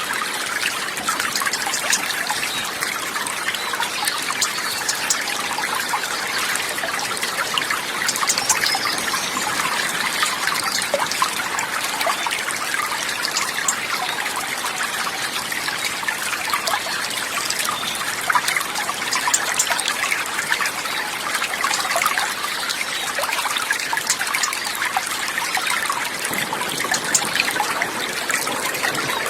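Steady trickling and babbling of running water, with constant small splashes and no pauses.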